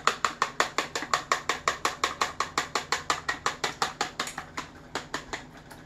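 Wooden chopsticks whisking a raw egg in a clear container, clicking against its sides in quick, even strokes about five or six a second. The clicks slow and thin out after about four seconds.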